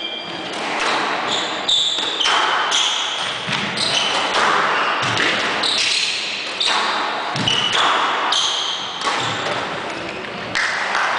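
Squash rally: the rubber ball cracking off the walls and racquets at irregular intervals, a hit every second or so, with short high squeaks of court shoes on the wooden floor.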